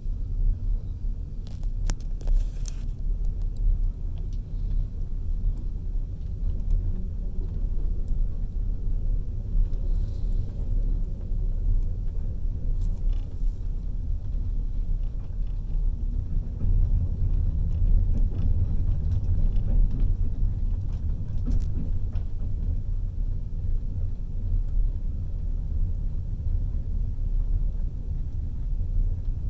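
Passenger train running steadily, a deep continuous rumble heard from inside the carriage at the window, with a few faint clicks and knocks here and there.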